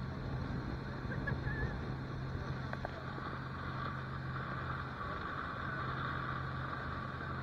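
Motorboat engine running steadily at speed, a constant low hum, with the rush of wind and water over the hull.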